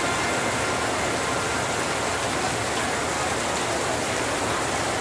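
Torrential rain pouring steadily, a dense even hiss with no separate drops or impacts standing out.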